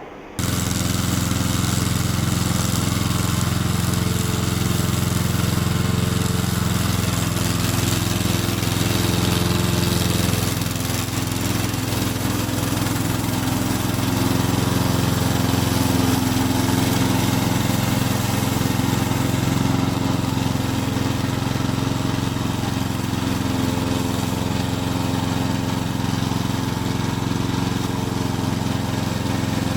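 Engine of a remote-control lawn mower running steadily.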